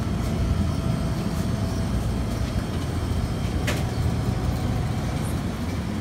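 Steady low rumble and hum of a small store's interior machinery, such as running refrigerated drink coolers, with one sharp click a little past halfway.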